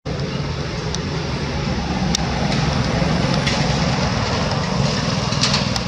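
Steady low rumble of background noise with a few faint short clicks.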